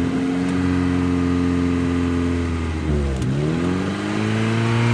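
1977 Honda Civic CVCC's carbureted four-cylinder engine idling steadily on full choke, which richens the mixture for a cold engine. About three seconds in, the engine speed sags sharply, then climbs back and settles into a steady idle.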